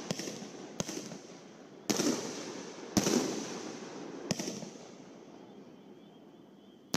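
Aerial firework shells bursting in the sky: a series of sharp reports roughly a second apart, the loudest two about two and three seconds in, each trailing off in a long echo. The volleys die away over the last couple of seconds.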